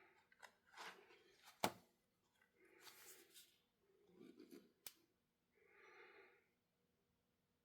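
Faint rustling of a large book's pages being handled and turned, a few soft swishes spread out, with one sharper tap or click about a second and a half in.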